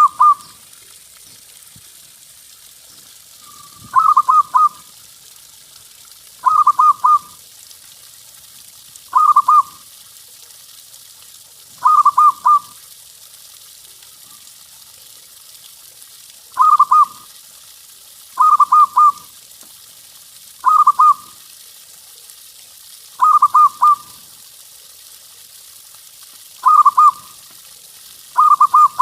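Zebra dove (perkutut) cooing: a short phrase of a few quick rolling notes at one pitch, repeated about ten times, every two to three seconds.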